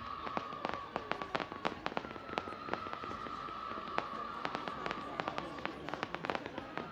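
Fireworks display, heard from a distance: rapid, irregular sharp pops and crackles as small shells and comets burst. Over the pops a steady high whistle comes and goes, breaking off about one and a half seconds in and again near five seconds.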